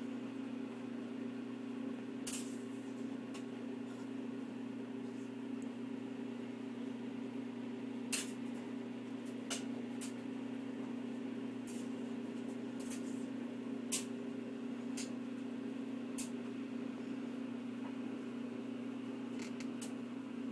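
Steady low mechanical hum, with about a dozen scattered light clicks and taps from puppies moving and playing in a wire crate.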